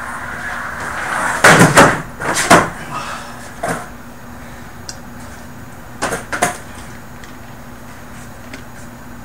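Skateboard wheels rolling on a carpeted floor, rising as the board approaches, then the deck and wheels clattering down in several loud knocks about a second and a half in. A lighter knock follows, then two more knocks about six seconds in.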